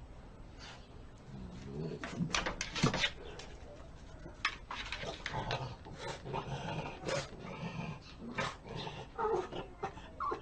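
A dog making a string of short, odd-sounding vocal noises, some whining and some rough, with brief pauses between them.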